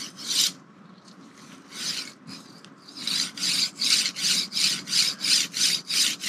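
A linear rail's ball-bearing carriage being slid back and forth along its steel rail, each stroke a short rasp: a couple of strokes at first, then a fast, even run of about three a second from about halfway. The carriage is being worked in mineral spirits to flush out its shipping grease until it moves freely.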